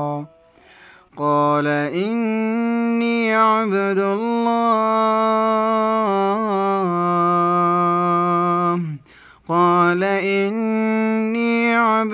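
A man's unaccompanied, melodic Quran recitation, drawing out long ornamented held notes. He pauses for breath twice, just after the start and about nine seconds in.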